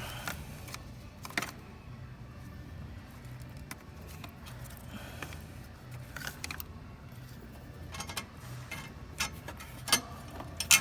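Metal hand tools clinking and tapping against engine parts: scattered sharp clicks, a few close together around the first second and a half and again near the end, over a low steady hum.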